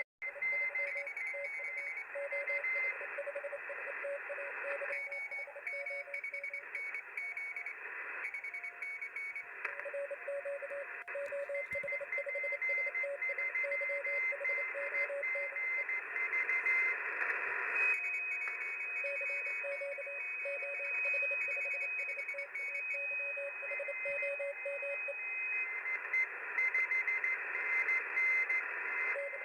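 Shortwave radio receiver audio in Morse (CW) mode: narrow-band hiss with several Morse code signals keyed on and off at different pitches at once. A steady whistle of an unkeyed carrier sounds for several seconds in the middle.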